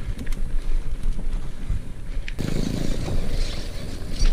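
Mountain bike rolling along a dirt road, its tyres rumbling and wind buffeting the action-camera microphone, with a few clicks and rattles from the bike. About two seconds in the sound changes abruptly to a busier rattle as the bike rides over cobblestones.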